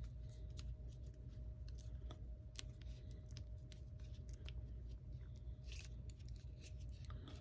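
Faint, irregular small clicks and scratches from working the iPhone's battery adhesive pull tab loose with hand tools, over a steady low hum.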